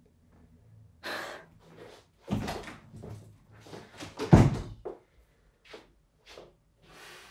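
A door slammed shut, heard as a heavy low thud about four seconds in, with several softer knocks and thumps around it.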